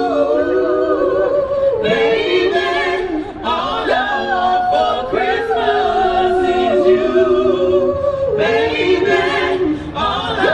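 A cappella vocal group singing held chords in close harmony, amplified through a stage PA, the chords changing every second or two.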